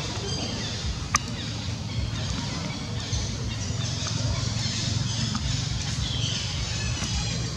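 Outdoor ambience: a steady low rumble with faint high bird chirps, and one sharp click about a second in.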